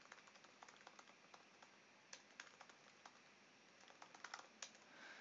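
Faint keystrokes on a computer keyboard: irregular taps while text is typed, with a quicker run of keys about four seconds in.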